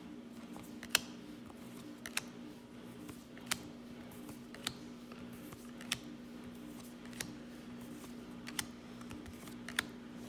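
Baseball trading cards being flipped through one at a time, a sharp click about every second as each card is set down on the stack, over a steady low hum.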